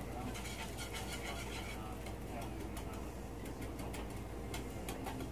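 Butter, brown sugar and pineapple chunks bubbling in a hot cast-iron skillet, with many small irregular crackles and pops. The caramelizing sugar is cooking too hot and starting to burn.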